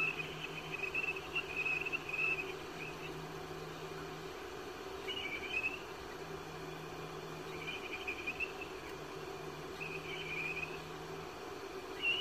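Mobile phone ringing: a high, warbling ringtone in repeated short phrases, with a low buzz coming and going alongside it.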